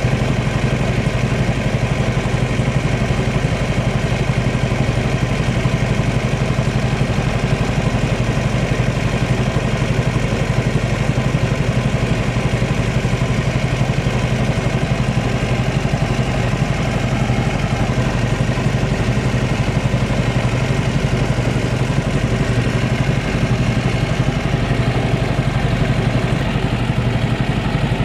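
A small boat's motor running steadily at an even speed, with a constant low hum heard from aboard the boat.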